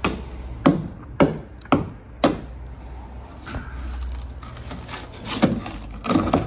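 Screwdriver jabbed into a van's rusted outer sill: five sharp knocks about half a second apart, then a couple more near the end. The sill is rotten, with filler in it.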